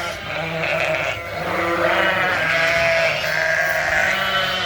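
Many sheep and lambs bleating at once in a steady, overlapping chorus of calls, as ewes and lambs call for each other while being moved between pens.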